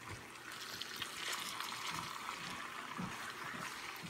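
Chicken legs and onions frying in hot vegetable oil in a skillet: a faint, steady sizzle, with a few light knocks of a fork against the chicken and pan.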